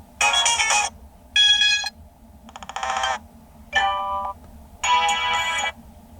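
Ringtones playing from a Toscido X109 phone's speaker: five different short electronic melodies, one after another, each cut off after less than a second.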